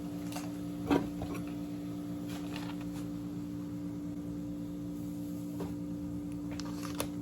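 Steady low hum with a few fixed tones, with scattered light clicks and a louder knock about a second in.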